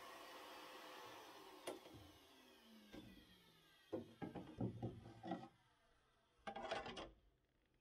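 Oscillating multi-tool winding down faintly with falling pitch after cutting, then a run of knocks, rattles and scrapes as the cut-out fibreglass panel is worked loose and pulled out of the new hatch opening.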